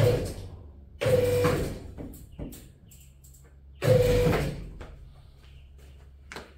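Hammer striking steel, three heavy blows a second or more apart, each ringing out with a metallic tone that fades over about a second, plus a few lighter clicks of metal between them and near the end. This is typical of tapping a steering column universal joint apart to free it.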